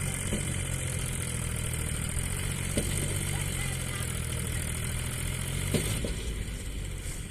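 A JCB backhoe loader's diesel engine running with a steady hum, with a few sharp knocks. About six seconds in, the steady engine note drops away and the sound gets a little quieter.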